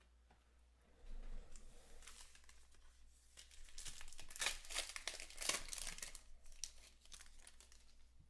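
A trading-card pack wrapper being torn open and crinkled by hand. It starts about a second in, with the densest run of ripping and crinkling in the middle, then tails off.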